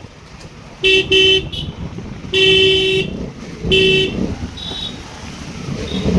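Vehicle horn honking in short steady toots: two quick toots about a second in, a longer one at around two and a half seconds, and another at about four seconds, over a low engine and road rumble.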